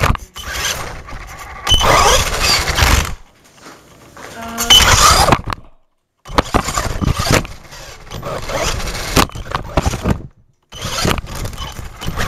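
Traxxas E-Revo VXL brushless electric RC truck being driven, heard from on board: loud surges of wind, tyre and chassis noise with motor whine, coming and going every second or two. The noise cuts out briefly twice.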